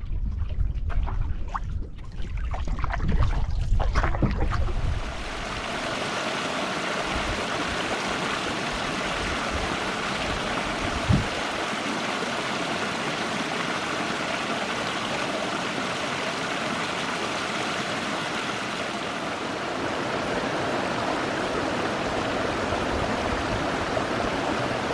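Small stream cascading down over rocks: a steady rush of running water that sets in about five seconds in. Before it there are a few seconds of low wind rumble on the microphone, and there is a single short knock near the middle.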